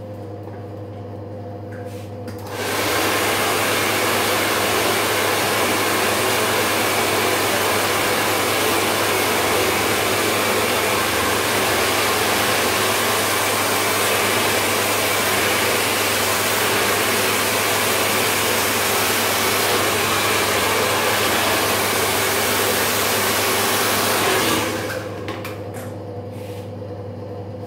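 Handheld hair dryer blowing air in a steady, loud rush, starting about two seconds in and stopping near the end, under a steady low hum.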